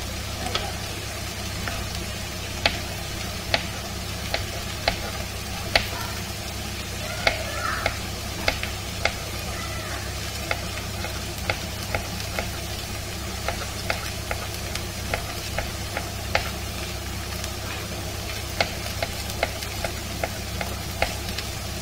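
Onion, sweet corn and beans frying in oil in a wok over a gas burner: a steady sizzle with sharp pops and spatters at irregular intervals, about one a second, the loudest in the first few seconds.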